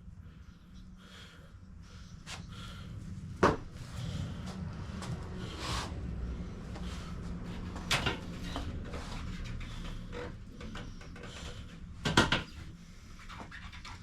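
Three sharp knocks, about 3.5, 8 and 12 seconds in, with smaller clicks between them, over a low steady hum.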